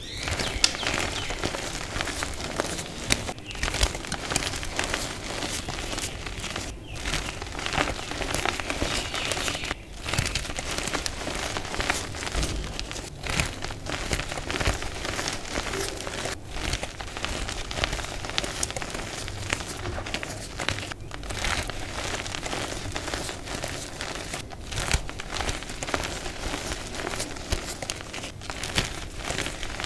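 Hands crushing and crumbling chunks of reformed gym chalk, a dense crunchy crackle mixed with soft, dusty grinding as the pieces break down to powder. There are brief pauses every few seconds.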